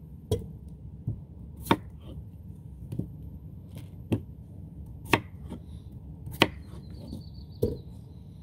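A knife chopping peeled potatoes on a cutting board: about eight sharp knocks of the blade hitting the board, roughly one a second, at an uneven pace.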